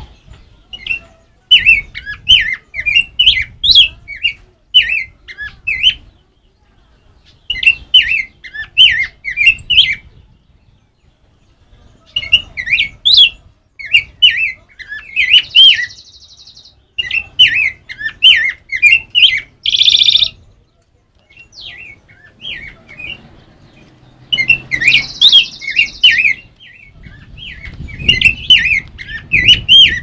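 Black-backed grosbeak (rey del bosque) singing loud bouts of rapid, rich warbled phrases, each bout a few seconds long with short pauses between. A brief harsh, noisy burst comes about twenty seconds in.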